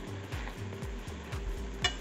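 Vegetables and chicken sizzling faintly in a stainless steel pan as they are stirred, under music with a steady low beat. A utensil clatters against the pan near the end.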